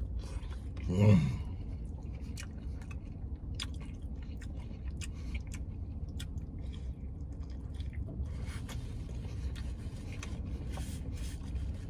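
A man chewing a big mouthful of burrito, with many small wet clicks of the mouth. There is a brief sound from his voice about a second in, over a steady low hum.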